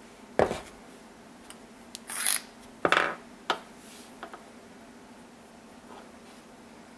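Hands handling metal parts and tools during air-rifle maintenance: a sharp knock, a short scrape about two seconds in, then another knock with rubbing and a click, and a few light ticks.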